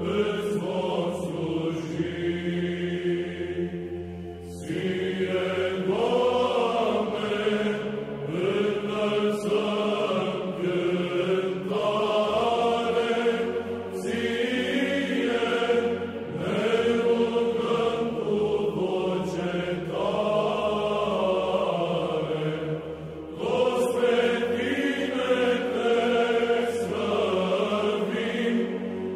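Background music: a choir chanting in long, held phrases over a steady low drone, with short breaks between phrases.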